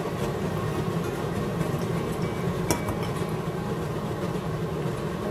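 Jjajang sauce simmering in a frying pan over a steady low hum, with a light clink of the spatula against the pan a little over halfway in.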